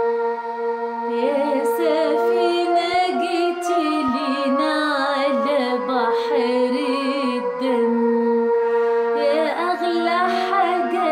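Female singing of an Arabic Coptic hymn over a held keyboard chord, the voice coming in about a second in with a wavering vibrato and pausing briefly before taking up the next line.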